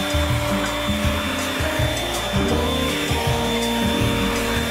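Handheld vacuum cleaner running steadily on car carpet, with a thin high motor whine, over background music.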